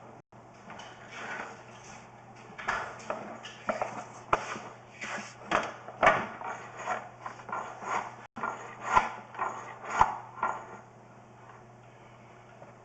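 Pipe inspection camera's push rod being fed down a vent pipe, knocking and scraping irregularly against the pipe and its fittings, over a steady low hum; the knocking stops near the end.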